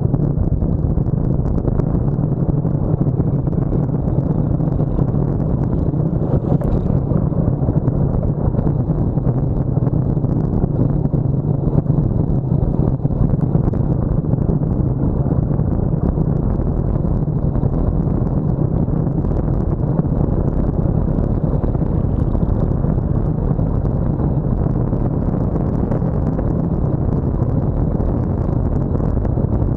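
Steady rush of wind over a handlebar-mounted camera's microphone on a road bike riding fast downhill, a constant low roar with no breaks.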